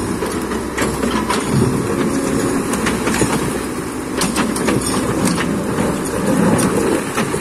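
Hydraulic excavator working, its diesel engine running in a steady low rumble, with many irregular metallic clanks and knocks from the machine and the stones it handles.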